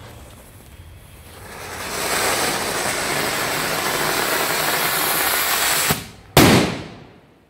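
Magic Fountain Mighty Atom Bomb firework: the fountain hisses louder over about a second into a loud, steady rush of sparks, then cuts off near six seconds. Moments later comes one loud bang as its atom bomb charge goes off, the loudest sound of all.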